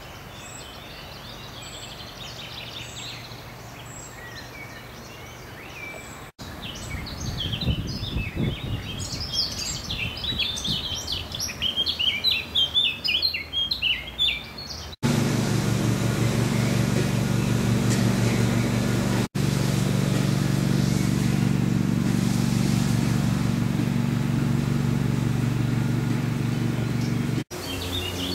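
Woodland songbirds singing, faint at first and then a dense chorus after an abrupt cut. About halfway through, another abrupt cut brings a loud, steady, low engine drone with no bird song. It runs until just before the end, where the birds return.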